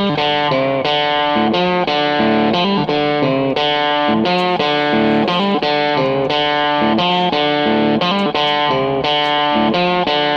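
Background music: a guitar playing a melodic run of single notes, about two to three a second.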